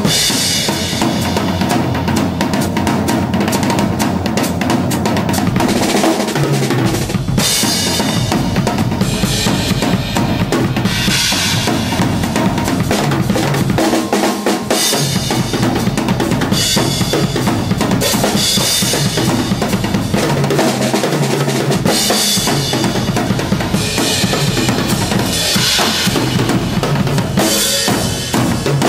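Drum solo on a large acoustic drum kit: dense, continuous bass drum and snare playing, with cymbal crashes every few seconds.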